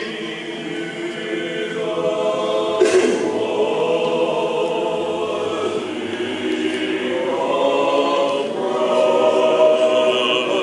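Choir singing an unaccompanied Orthodox church hymn.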